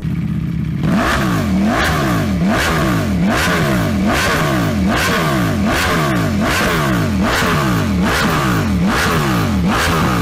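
Ducati Panigale V4R's 998cc 90-degree desmodromic V4, breathing through an aftermarket twin-outlet exhaust, idles for about a second and is then revved in quick repeated throttle blips, the pitch dropping and climbing about one and a half times a second.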